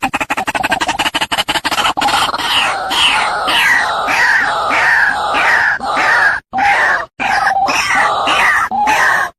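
White-breasted waterhen calling: a rapid run of harsh pulses for about the first two seconds, then a string of loud, harsh notes repeated about twice a second, each dropping in pitch.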